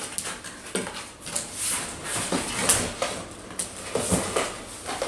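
A cardboard box being opened and handled: irregular scraping, rustling and light knocks of the box and its flaps, with a few sharper knocks partway through as it is set down on the table.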